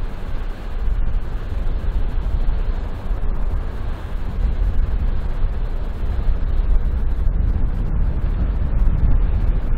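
Wind buffeting the microphone in a low, fluttering rumble, with the passing river cruise ship and its bow wash underneath.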